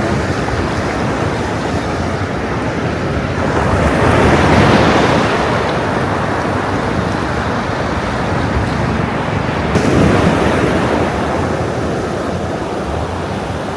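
Ocean surf washing onto a sandy beach: a steady rushing hiss that swells with a breaking wave about four seconds in and again about ten seconds in.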